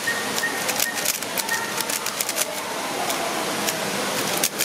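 Quick, irregular clacking of a pastel plastic 3x3 speed cube's layers being turned during a solve, over a steady hiss. Short faint high chirps sound behind the clicks in the first half.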